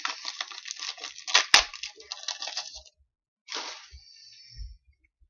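Trading-card pack handling: a foil wrapper crinkling and rustling, with a sharp snap about a second and a half in, then a shorter rustle later on.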